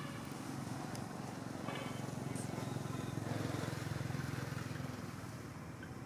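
Low hum of a motor vehicle's engine in the background, growing to its loudest about three to four seconds in, then fading.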